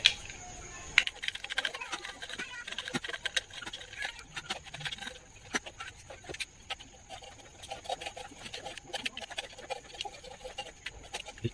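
Scratching, crackling and irregular sharp clicks as the old glued surround, gasket and cone remnants are cut and peeled off the metal rim of a 15-inch speaker basket.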